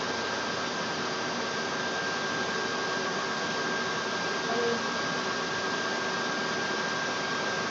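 Steady hiss with a thin, steady high-pitched whine running through it.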